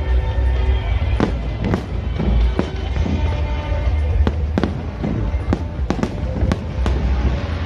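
Aerial fireworks bursting in a rapid run of sharp bangs, about two a second, over a continuous deep rumble of more distant bursts, with music playing alongside.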